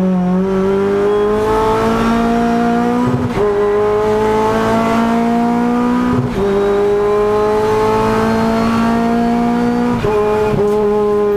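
Renault Clio Cup X85 race car's 2.0-litre four-cylinder engine at full throttle, heard from inside the cockpit, its pitch climbing slowly in each gear with quick upshifts about three, six and ten seconds in.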